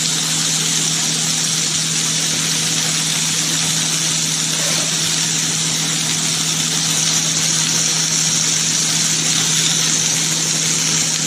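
Steady sizzle of food frying in two pans: a chicken breast on a cast-iron grill pan and vegetables in olive oil under a lidded skillet. A constant low hum runs under it.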